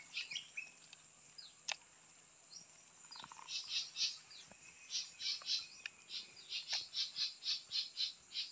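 Rhythmic high chirping calls from a small animal, about five a second, coming in bouts from about three and a half seconds in, with a single sharp click about two seconds in.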